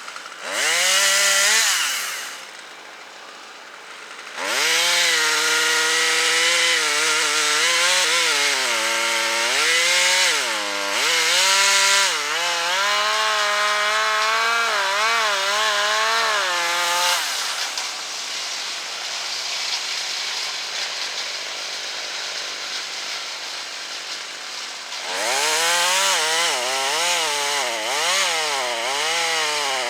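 Chainsaw running and cutting wood, its engine pitch rising and falling as it is throttled and loaded. It drops low for a couple of seconds near the start, runs steadier and a little quieter in the second half, then revs up and down again near the end.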